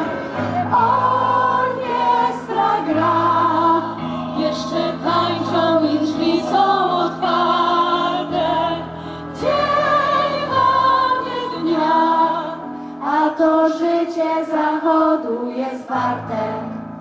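Choir singing a song in harmony over a low bass accompaniment that changes note about once a second.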